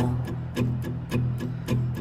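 Song accompaniment on guitar: evenly spaced plucked notes, about four a second, with no singing.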